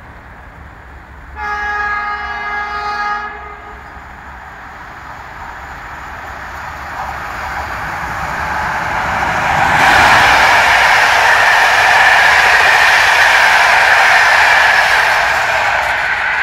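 A locomotive horn sounds once for about two seconds, a chord of several pitched tones. Then an electric-hauled passenger train approaches at about 120 km/h, and its wheels and coaches rush by loudly from about ten seconds in.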